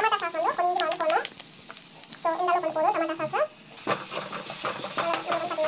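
A perforated steel spatula stirring and scraping chopped onions in a nonstick frying pan, the oil sizzling louder from about four seconds in. A high-pitched wavering voice sounds in short phrases over it.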